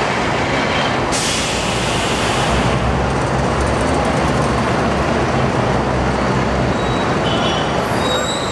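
Diesel bus engine idling with a steady low hum, and a sharp burst of compressed-air hiss from a bus starting about a second in and lasting nearly two seconds.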